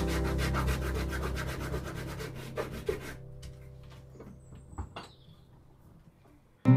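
Fast, even hand-sanding strokes on a wooden workpiece clamped in a bench vise, stopping about three seconds in. A few light knocks follow as it goes quiet.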